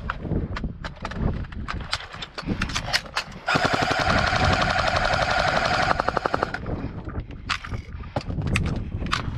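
Airsoft electric rifle firing a full-auto burst of about three seconds, about a third of the way in: a steady motor-and-gearbox whine with rapid, evenly spaced shots. Scattered sharp clicks come before and after the burst.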